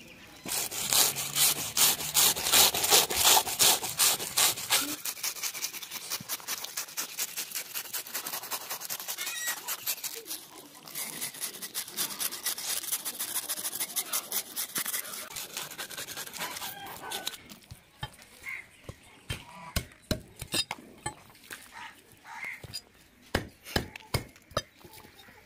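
Heavy knife scraping the scales off a large fish on a wooden stump, in rapid strokes several a second. After about seventeen seconds the strokes slow into separate scrapes and knocks of the blade.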